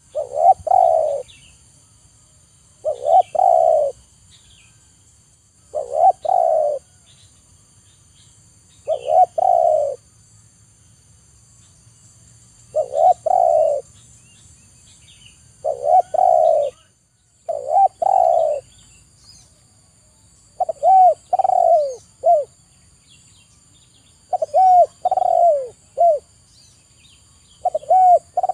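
Spotted dove (tekukur) cooing: a phrase of low, repeated coos about every three seconds, ten times over. In the last third the phrases break into quicker runs of three or four short, falling notes.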